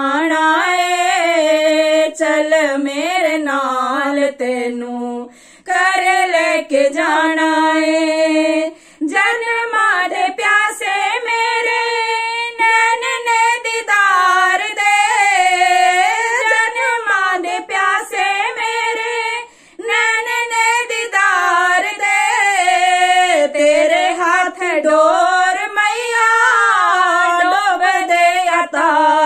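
Two women singing a Punjabi devotional bhajan to the Mother Goddess together, unaccompanied, with a few short pauses between lines.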